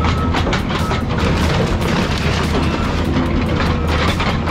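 Excavator's engine running under load with rapid, irregular metal clanking and crunching as a car body is torn apart.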